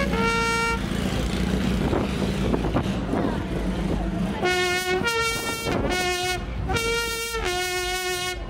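A coiled hose blown like a horn gives one held, trumpet-like note. After a pause of about three and a half seconds come five notes that alternate between two pitches, like a bugle call.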